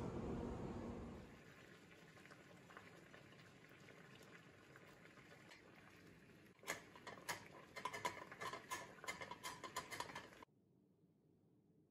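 Glass jar rattling in a stainless saucepan of boiling water, sterilised for pickles. Low bubbling at first, then a fast run of sharp glassy clinks against the pan for the last few seconds before it cuts off.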